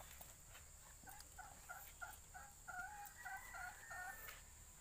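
A chicken calling faintly: a quick run of about a dozen short, repeated notes, roughly three a second, starting about a second in and stopping near the end.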